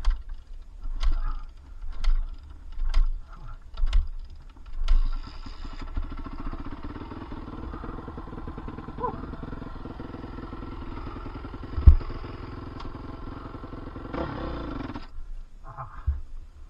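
Dirt bike being kick-started, about five heavy kicks a second apart. The engine then catches and idles steadily for about ten seconds before cutting off suddenly.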